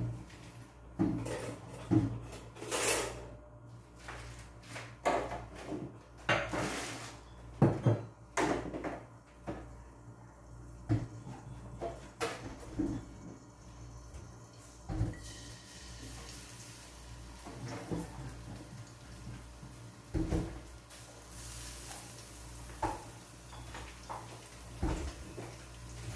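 Kitchen clatter: scattered knocks and clinks of pots, utensils and cupboards, with a faint steady hiss setting in about halfway through.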